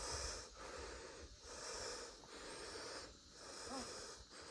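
A hiker breathing hard and rhythmically close to the microphone while climbing a steep mountain slope, with a breath in or out about every second.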